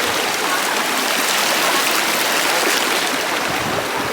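Virgin River rushing steadily over the rocks of the Narrows, heard up close from mid-stream.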